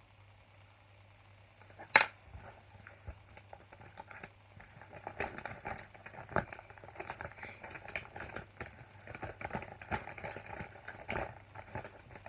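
Hands rummaging through a fabric zip bag of small items: a sharp click about two seconds in, then a long run of small clicks, rattles and rustles as things inside knock together.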